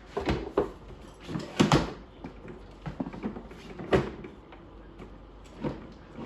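Hollow plastic knocks and clunks from a toy quad's plastic rear wheel being pushed and seated onto its axle. There are several separate knocks, and the loudest pair comes about one and a half seconds in.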